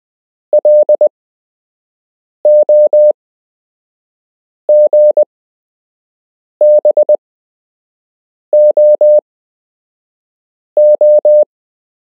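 Morse code practice tone: a single pure beep keyed into dots and dashes, sending one character about every two seconds, six characters in all, with silence between them. Several of the characters are three long dashes.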